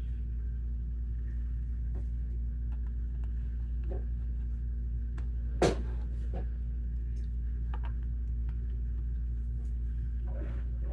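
Steady low hum with a few light clicks of plastic Lego pieces being handled, and one sharper click about halfway through.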